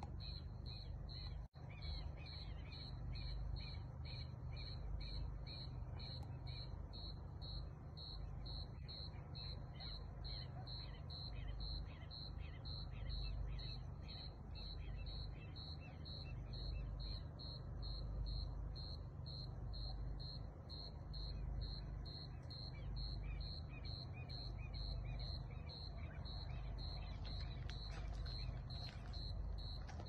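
A cricket chirping steadily at one high pitch, about two chirps a second, over a low, steady rumble.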